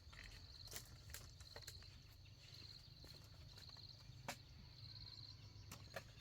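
A cricket chirping faintly in short trills, roughly one a second, with a few sharp taps; the tap about four seconds in is the loudest.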